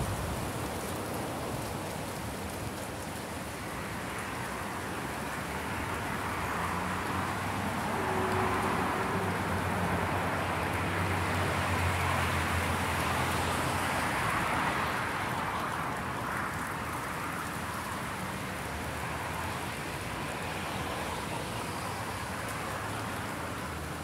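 Distant road traffic: a steady hiss with a vehicle's engine hum and tyre noise swelling about a third of the way in, then fading.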